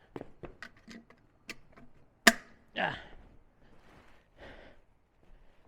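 Light clicks and clatter of tools or parts being handled, with one sharp knock about two seconds in, followed by a short grunt and breathing from the man working.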